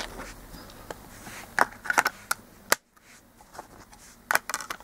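Blu-ray discs being handled and set back onto a steelbook's clear plastic disc tray: scattered small clicks and taps of disc against plastic and metal. There is a cluster of clicks near the end and a brief break in the sound just under three seconds in.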